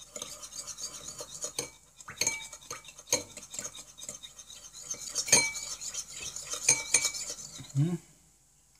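Silver teaspoon stirring honey, water and salt in a glass bowl to dissolve the honey, scraping against the glass with several ringing clinks. The stirring stops about a second before the end.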